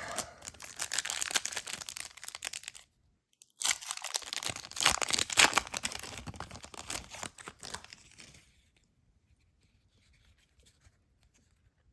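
A trading-card pack wrapper being torn open and crinkled, in two stretches of crackly tearing with a short break between, then quiet for the last few seconds.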